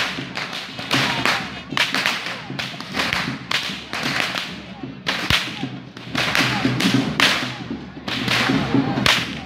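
Ceremonial whips cracked by several whip-crackers in a perahera procession: sharp, uneven cracks overlapping at about two to three a second, each trailing off briefly.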